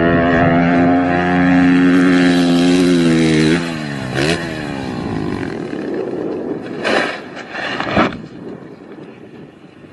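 Dirt bike engine held at high revs, dropping off and revving back up about four seconds in. After that comes a quieter, rougher sound with two sharp knocks near the end.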